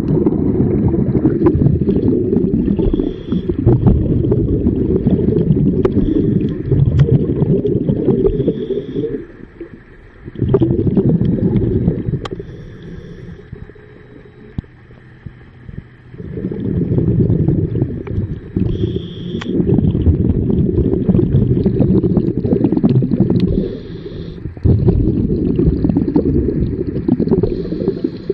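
Scuba diver breathing through a regulator underwater: long stretches of rumbling, gurgling exhaust bubbles, with short hissing inhalations in the quieter gaps between them.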